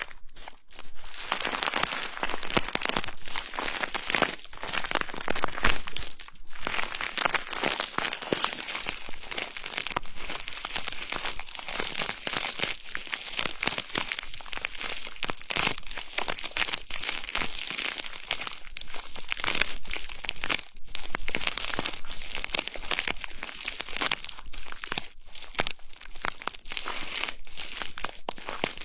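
Close-up ASMR prop brushing and rubbing at the microphone: a dense, continuous crinkly rustle of many fine rapid strokes, with short pauses now and then.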